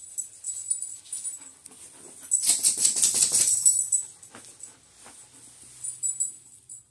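Dogs tussling, with collar tags jingling. A loud burst of dog vocalizing about two and a half seconds in lasts roughly a second and a half.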